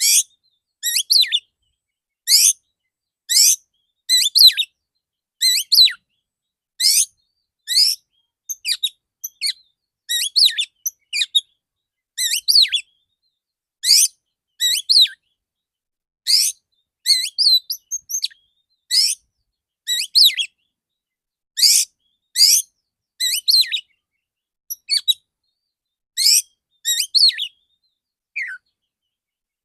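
Male oriental magpie-robin (kacer) singing short, sharp, high phrases over and over, about one a second with clean gaps between. These are the loud 'dor dor' shot-like notes (tembakan) that kacer keepers prize.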